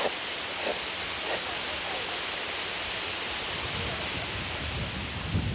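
Steady wind hiss on a handheld camcorder's microphone in strong wind, with low buffeting that builds over the last two seconds.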